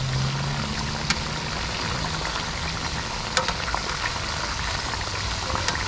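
Speckled trout pieces deep-frying in hot oil in a wok: a steady bubbling sizzle, with a few sharp clicks of metal tongs against the pan, about a second in and again past three seconds.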